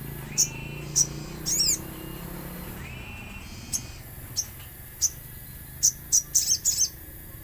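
Little spiderhunter (sogon) giving short, sharp, high calls: single calls spaced a second or so apart, then a quick run of about five near the end. A steady high background buzz runs underneath.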